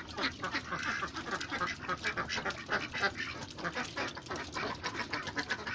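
Domestic ducks in a pen quacking and chattering, many short calls in quick succession.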